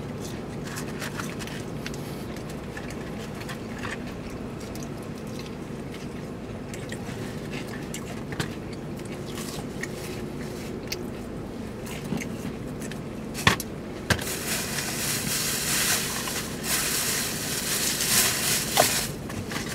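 Steady low hum inside a car cabin, with small clicks of chewing. Over the last several seconds a louder rustling hiss builds, with a few sharp ticks.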